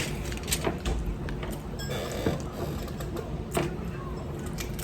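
Close-miked eating sounds: chewing and smacking, with scattered sharp clicks about a second apart.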